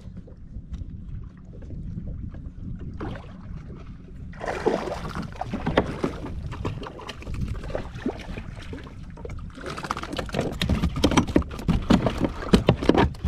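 Wind buffeting the microphone, then from about four seconds in water splashing and knocking against the kayak as a hooked bluefish thrashes at the surface. The splashing grows louder and busier near the end.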